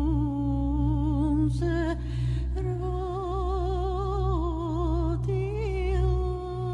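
Background music: a solo voice singing long held notes with wide vibrato over a steady low drone.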